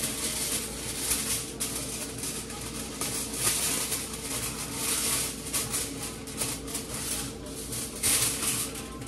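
Aluminium foil being pulled from its box and crinkled by hand: irregular crackling rustles, louder about three and a half seconds in and again near the end.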